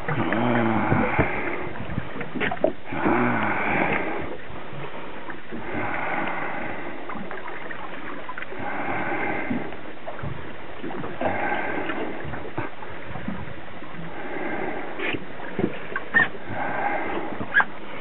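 Water washing against a boat in surges every two to three seconds over a steady rush of noise, with a few sharp knocks near the end.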